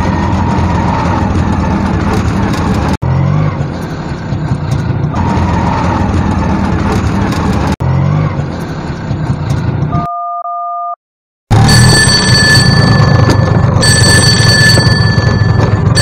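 Autorickshaw engine running while the vehicle drives, a loud noisy rumble. About ten seconds in there is a short two-tone electronic beep, then a loud electronic phone ringtone of steady high tones switching on and off over the engine noise.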